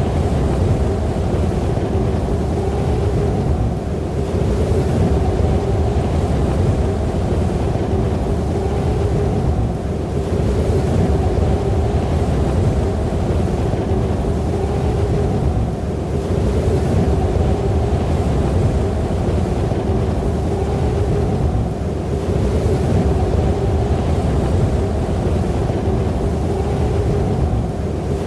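Snowstorm wind blowing steadily with a low, wavering howl. It eases slightly about every six seconds.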